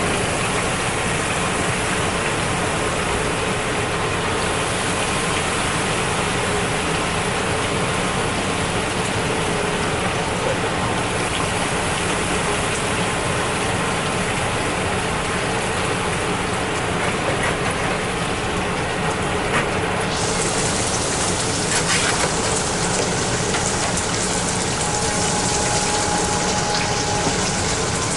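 Shrimp tempura deep-frying in hot oil: a steady, dense sizzle that turns brighter and harsher about twenty seconds in, with a few small clicks.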